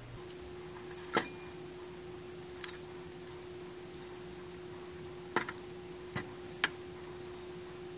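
Hands kneading and shaping soft glutinous rice dough, giving a few irregular sharp clicks and taps, the loudest about a second in. A faint steady hum sits underneath.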